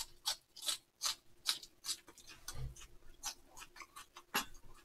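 Eating and food-handling sounds picked up close to the microphone: a run of small sharp clicks and smacks, two or three a second, with a soft thump about two and a half seconds in.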